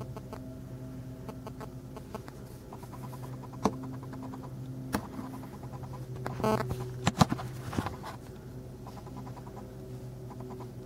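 Scattered sharp clicks and light knocks of things being handled, loudest in a cluster about two-thirds of the way through, over a steady low hum.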